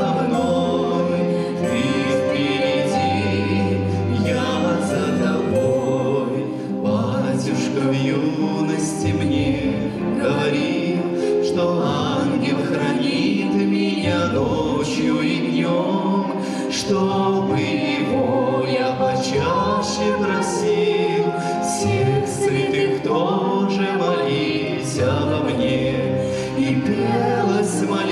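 A woman and a man singing a duet into microphones, with instrumental accompaniment underneath.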